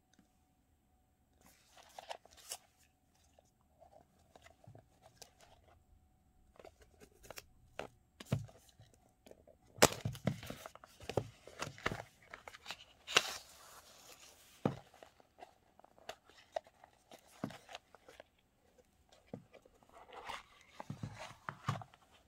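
Cardboard gift-box packaging being handled: a printed paper sleeve is slid off a rigid box, and the box is turned and tapped. The result is scattered rustles, scrapes and light taps, busiest in the middle.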